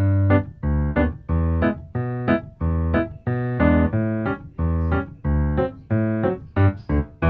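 Background music on a keyboard, like an electric piano, playing short, separate chords in a steady rhythm, roughly two to three a second.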